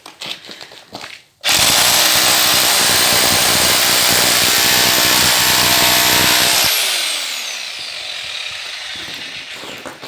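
Parkside PBH 1500 E5 1500 W hammer drill switched on: it starts suddenly about a second and a half in and runs loud and steady for about five seconds. It is then released, and the motor winds down with a falling whine.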